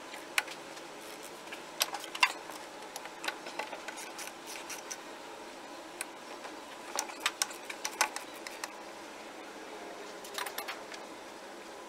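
Ratchet wrench clicking in short clusters, with light metallic clinks of the socket and tools, as the 17 mm bolts holding a power steering pump are turned out.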